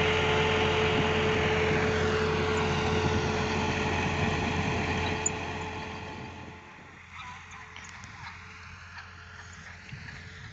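Vehicle engine running loudly with a steady whine, then fading away over a second or two about six seconds in, leaving a quieter background with a few faint clicks.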